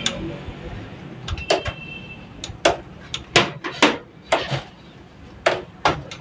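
Irregular sharp clicks and knocks of metal hardware being handled against a desktop computer case as a motherboard is fitted into it, the loudest cluster about halfway through.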